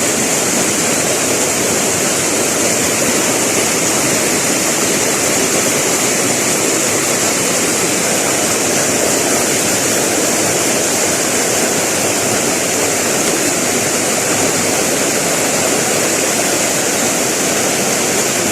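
Steady, loud rushing of fast-flowing river water, an even wash of noise with no distinct events.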